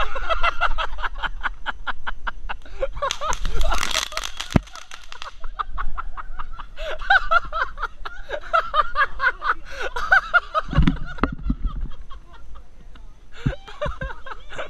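People laughing and shrieking in quick, excited bursts, with a loud hiss partway through.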